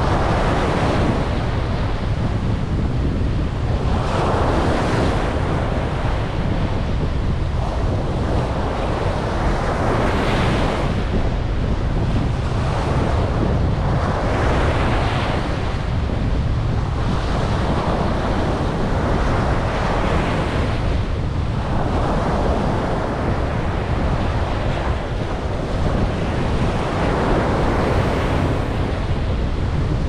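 Sea waves breaking and washing up a sandy beach, the surf swelling every three to four seconds, with wind buffeting the microphone as a steady low rumble underneath.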